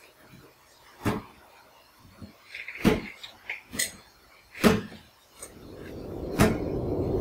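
Four sharp thuds evenly spaced about two seconds apart, with a few small clicks and a short rattle between them, then a low rushing swell that rises steadily near the end.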